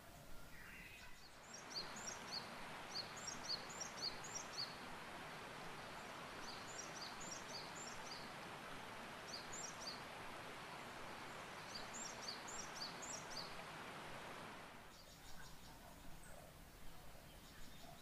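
Outdoor nature ambience: a steady rushing noise with a small bird singing over it in four short bursts of quick, high chirps. The ambience starts about a second and a half in and cuts off a few seconds before the end.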